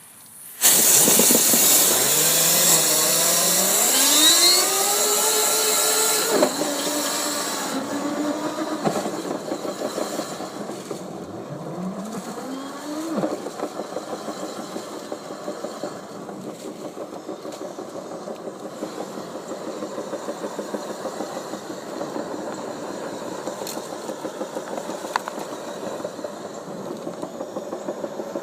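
Dryer-vent cleaning equipment motor starting up about a second in and spinning up with a rising pitch, then running steadily with a fast rattling pulse; it rises in pitch once more partway through.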